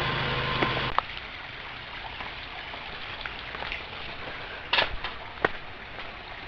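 A steady low hum cuts off about a second in. After that comes the even rushing of a shallow woodland creek, with scattered footsteps and a few sharp knocks on the stream bed, the loudest about five seconds in.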